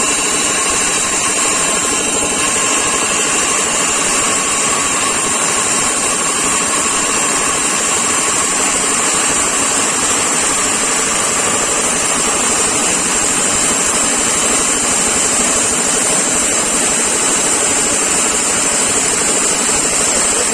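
Concrete core-drilling machine running steadily, its motor giving a continuous high whine over a loud, even grinding noise.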